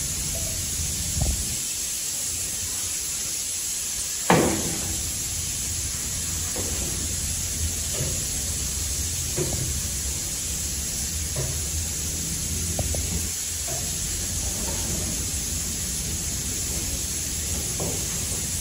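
Kitchen knife knocking on a plastic cutting board at irregular intervals, every second or two, as a green bell pepper is sliced, with one louder knock that rings briefly about four seconds in, over a steady hiss.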